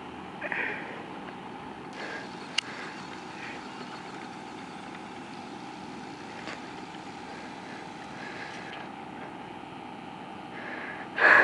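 Axial radio-controlled crawler's electric motor whining steadily at one pitch as the truck drives across sand, with a short loud noise near the end.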